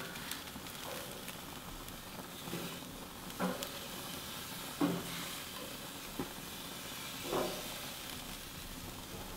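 Vegetables sizzling on the hot grates of a gas grill, a steady hiss, with about six short clinks and knocks as metal tongs set carrots and zucchini down on the grates.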